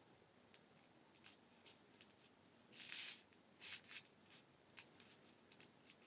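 Faint small clicks and short scraping rustles of jewelry materials being handled, with two louder scrapes about three and four seconds in.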